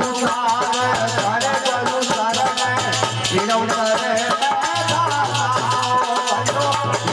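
Folk devotional bhajan music: a wavering melody over dense shaken rattle percussion, with a low note that comes and goes.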